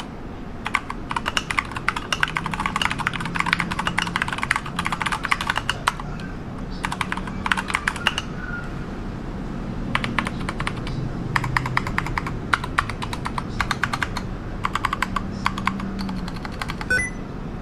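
Mechanical keyboard typing: rapid runs of key clicks in bursts separated by short pauses, as a typing-sound test.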